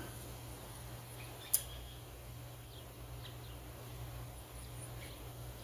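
Small clicks and ticks of a Tillotson carburetor's parts being handled and pried apart, one sharp click about one and a half seconds in, over a steady low hum.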